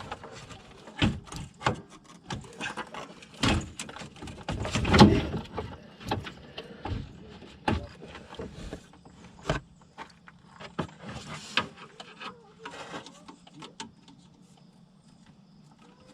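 Irregular knocks, clunks and scraping of plastic and metal parts as the radiator assembly is pried and worked loose, loudest about five seconds in and quieter near the end.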